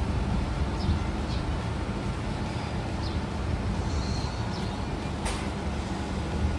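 Steady road and tyre rumble of an MG4 electric car on the move, heard from inside the cabin with no engine note. A few faint ticks and one sharp click about five seconds in.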